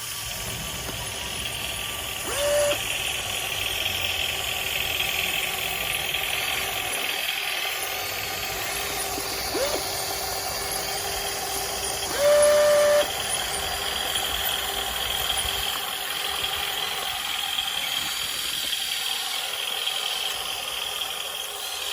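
Small motors of a radio-controlled hydraulic excavator running with a steady whine and hiss. A short pitched tone sounds twice, about two seconds in and again about twelve seconds in, the second lasting under a second and louder than the rest.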